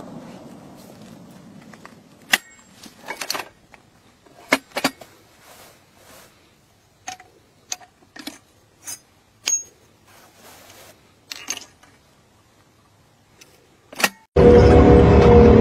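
Sharp metallic clicks and clanks of a tripod-mounted gun being handled by hand, its action and magazine worked, while the noise of the last firing dies away. About fourteen seconds in, a loud steady engine sound cuts in suddenly.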